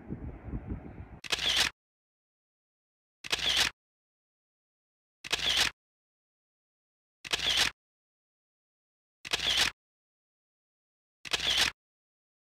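Camera shutter clicking six times, evenly about every two seconds, with dead silence between. Wind on the microphone is heard in the first second.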